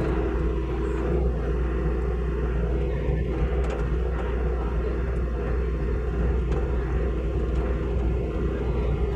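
Hitachi mini excavator's diesel engine running steadily with a low rumble.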